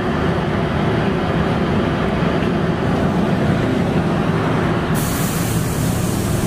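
Subway train standing at the platform: a steady low rumble inside the carriage with passengers moving through the doorway. About five seconds in, a loud, sharp hiss begins.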